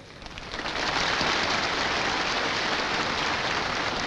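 Large crowd applauding, swelling up about half a second in and then holding steady.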